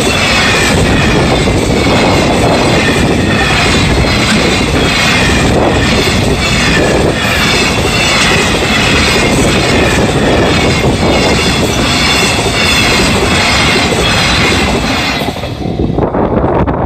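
Freight wagons behind an EF210 electric locomotive rolling past at close range: a loud, continuous noise of steel wheels on the rails with a high, wavering ringing over it. About 15 to 16 seconds in, the end of the train passes and the noise drops away sharply.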